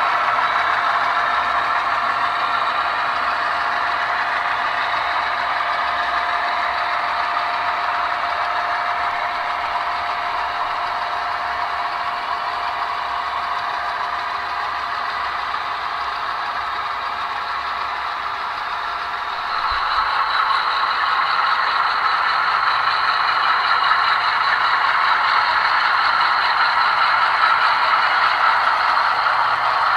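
HO-scale model coal train running on the track: a steady rolling rattle as the cars pass. About twenty seconds in the sound steps up louder and changes, with a more even running noise.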